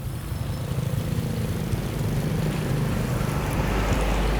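A vehicle engine running steadily with a low hum, getting a little louder toward the end.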